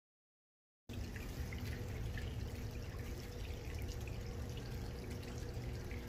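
Nothing for about the first second, then a steady low rumble with a faint hum, over which gloved hands sifting through loose potting soil make faint crackles and trickles.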